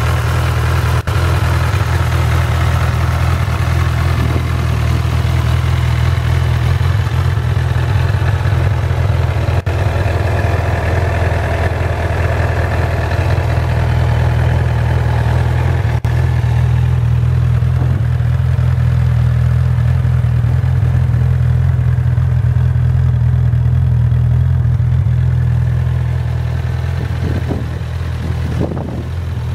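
Honda CB1000R's inline-four engine idling steadily, with no revving.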